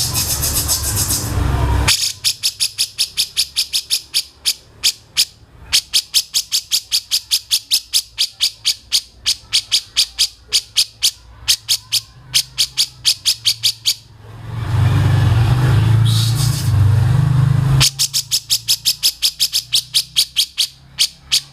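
A bird's call repeated as a rapid, even series of sharp high notes, about four a second, in two long runs. Between the runs, a loud low hum.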